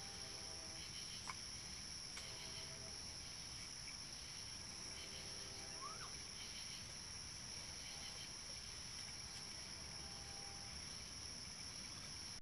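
Night chorus of crickets: a steady, high-pitched trill over a low hiss, picked up by a security camera's microphone, with a few faint clicks and a short rising chirp.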